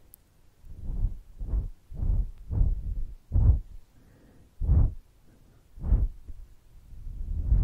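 Short puffs of breath blown directly onto a foam-covered microphone, each a brief low rumbling whoosh, about nine in all with some in quick succession and longer pauses between the later ones. Near the end a longer, continuous blow starts and grows louder.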